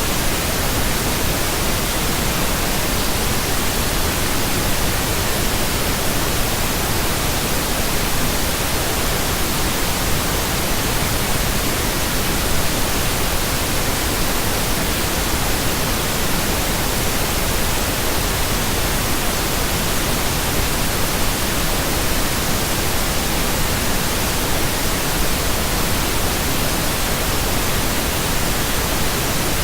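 Synthetic pink noise: a steady, even hiss spread across the whole range from low to high, with no tones, pulses or changes.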